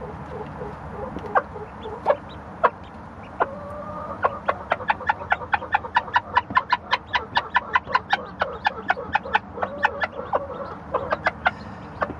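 Hen clucking and pecking at a coop floor of wood shavings. After a few scattered sounds, a fast run of short clucks and sharp pecking taps, about four a second, starts about four seconds in and lasts until near the end.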